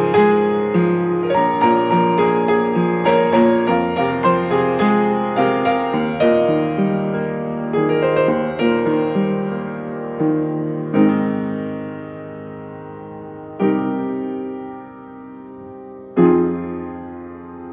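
Background piano music: a quick, busy run of notes that thins out about halfway through into a few single chords, each left to ring and fade.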